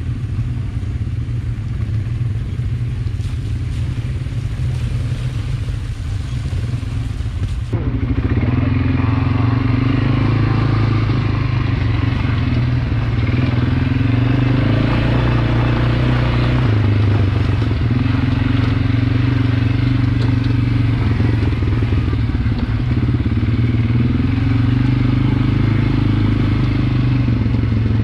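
ATV engine running steadily as the quad is ridden, its note shifting up and down with the throttle. The sound jumps suddenly louder about eight seconds in.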